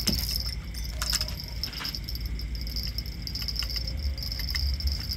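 Light metallic jangling and clicks, loudest in the first two seconds with a few small ticks later, over a steady high insect drone and a low rumble.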